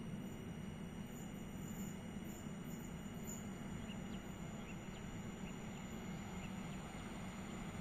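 Steady low rumble and hiss of an outdoor railway station, with a few faint short high ticks in the middle and no distinct event.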